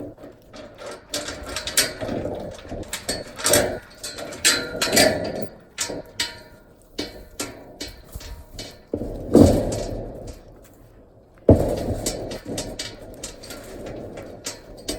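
Irregular knocking, clattering and scraping of hand work with hard objects, with two sudden heavy bangs about nine seconds and eleven and a half seconds in.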